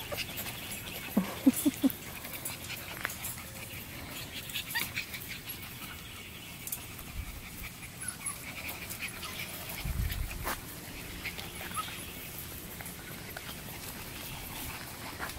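Young boxer puppies: three short yips about a second in, then faint whines now and then. A low thump near ten seconds.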